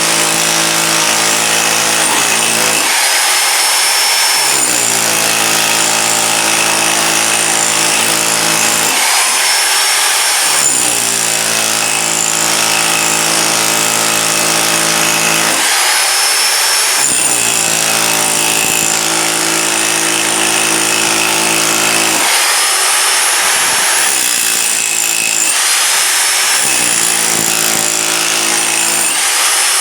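Bauer SDS Max rotary hammer with a chisel bit breaking up a concrete basement floor along the foundation, running loud and steady with fast hammering blows. The hammering drops out for about a second several times, roughly every six seconds, while the motor keeps running.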